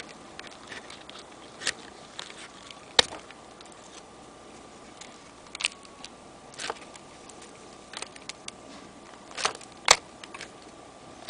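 Scattered handling clicks and rustles from a hand-held camera and fingers moving close to the microphone, the loudest about three seconds in and again near the end, over a faint steady tone.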